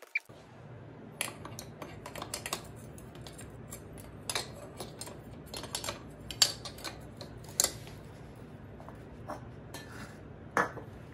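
Renthal 1XR chainring clinking and tapping against the crank as it is handled and fitted onto it: a string of light metallic clicks, with a few sharper clinks in the second half, over a steady low hum.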